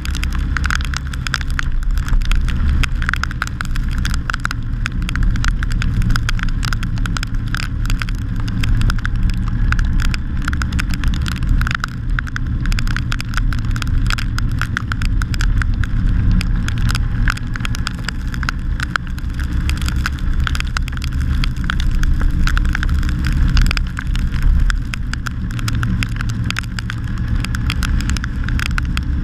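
Steady wind rumble and road noise on a GoPro mounted on a Honda GL1800 Gold Wing riding at speed on a wet road in the rain. Many small ticks run throughout, from raindrops hitting the camera housing.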